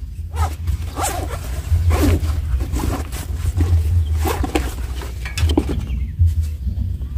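Backpack zipper pulled open in a series of short rasps, followed by rustling of the nylon bag as football boots are lifted out. A steady low rumble of wind on the microphone runs underneath.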